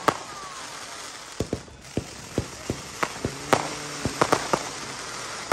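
Aerial fireworks going off: about a dozen sharp bangs and pops at irregular intervals, clustering toward the second half.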